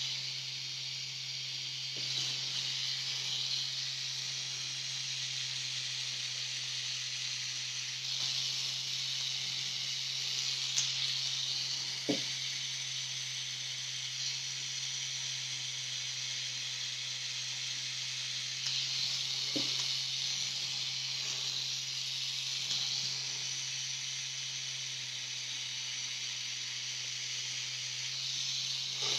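Pen-style tattoo machine running steadily while shading skin: an even low hum under a hiss that swells and fades, with a couple of faint knocks.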